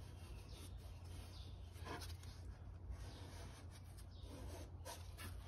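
Faint scraping and rubbing of gloved fingers smoothing an epoxy fillet along the joint between a bulkhead and the hull, in a few short strokes over a steady low hum.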